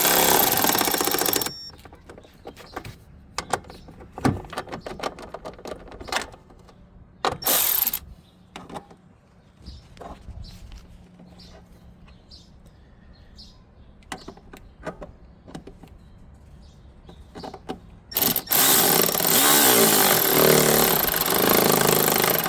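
Power drill with an 8 mm socket driving in the small mounting bolts of a blower motor resistor. It runs twice: for about a second and a half at the start and for about four seconds near the end. Between the runs there are scattered clicks and knocks of the tool and parts being handled.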